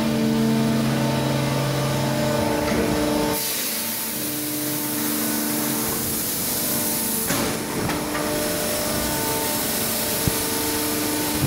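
Background music with held guitar-like notes over a steady hiss of running machinery, the hiss turning brighter about three seconds in; a single sharp click near the end.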